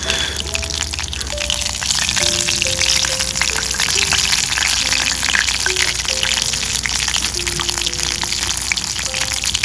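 Karaage deep-frying in a pot of hot oil: a steady crackling sizzle with many small pops, over soft background music of simple melody notes.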